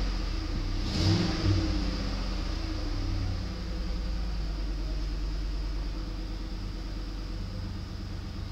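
2006 Mercury Mountaineer's 4.6-litre V8 heard from inside the cab, coming down from about 2,000 rpm with a brief louder burst about a second in, then settling to a steady idle near 1,000 rpm. It runs evenly and sounds healthy.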